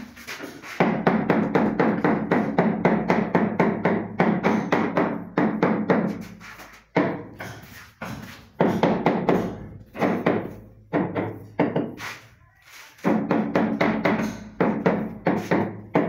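A mallet tapping rapidly on the face of a large porcelain wall tile to bed it into the adhesive: quick runs of hollow knocks, several a second, broken by short pauses.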